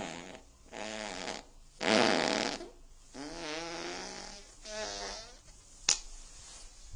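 A run of human farts: four separate ones, each lasting up to about a second, with a wavering, sputtering pitch. The second, about two seconds in, is the loudest. A single sharp click comes near the end.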